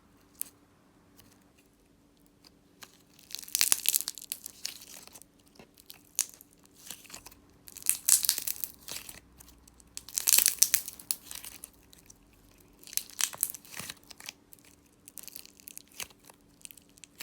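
Hand gum slime being squeezed and stretched by hand, giving bursts of crackling clicks and small pops from air bubbles in the putty. The bursts come in about five rounds a few seconds apart, with quiet between.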